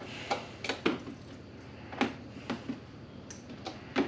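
Light clicks and knocks of musky fishing lures and their hooks being handled and set into the foam slots of a soft-sided tackle bag, several scattered taps over a few seconds.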